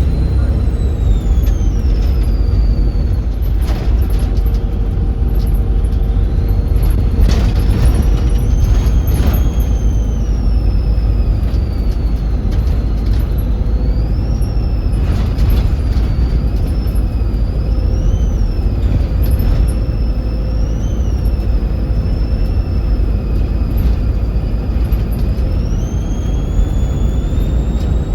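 Volvo B7RLE bus's six-cylinder diesel engine running under way with a heavy low rumble, its turbocharger whistling high above it, the whistle rising and falling several times with the throttle. A few sharp knocks or rattles cut through.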